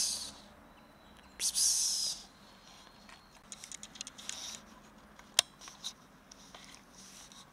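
A cat hissing twice, each hiss short and sharp, the first right at the start and the second about a second and a half in. Afterwards come scattered light clicks and crunches of a cat chewing dry kibble.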